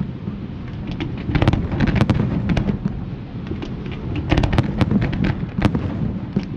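Fireworks display: rapid sharp bangs and crackles over a continuous low rumble of booms, coming in two bursts, about a second in and again about four seconds in.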